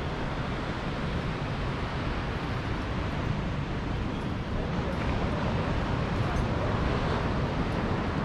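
Steady outdoor ambience: a constant rumbling hiss of wind on the microphone and distant surf, with no distinct events.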